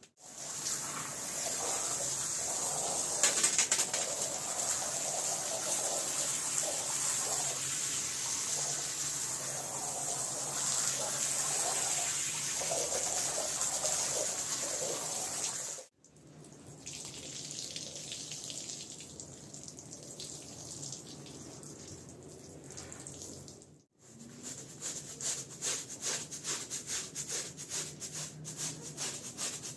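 Water spraying onto a wet rug with a steady hiss, in separately edited takes. In the last few seconds, a brush scrubs the wet rug in quick repeated strokes.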